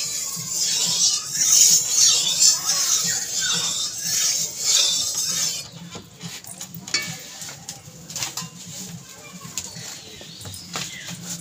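Hot cooking oil hissing and crackling in an iron karahi as it heats for frying fish and is stirred with a spatula. It drops to faint scattered crackles about six seconds in.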